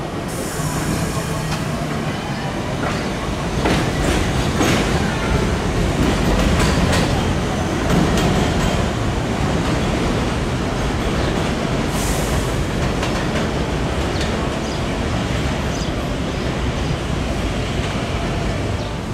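R62A subway train running on elevated track, a steady rumble with wheels clattering over the rails in a run of clicks a few seconds in, and short hisses near the start and about midway.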